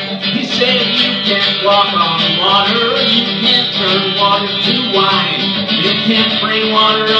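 Acoustic guitar strummed and picked, with a man singing over it.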